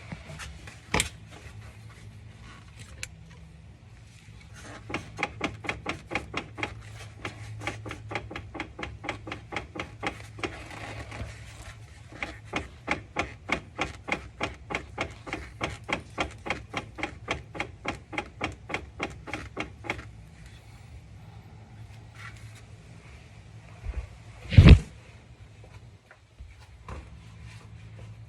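Metal clicking from the drivetrain of a 2010 Infiniti FX35 AWD as the driveshaft is turned by hand at the transfer case output, checking for play: a long run of even clicks, about three or four a second. A single heavy thump comes near the end.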